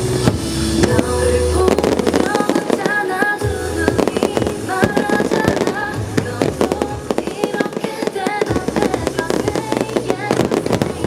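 Fireworks bursting and crackling in quick succession over loud music, the bangs growing dense about two seconds in.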